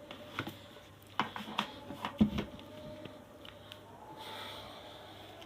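Scattered light clicks and knocks of handling as the stainless steel electric kettle's lid is opened, the loudest knock about two seconds in.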